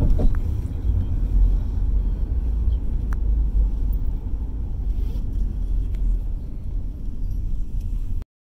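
Steady low rumble of a moving car's road and engine noise, which cuts off suddenly near the end.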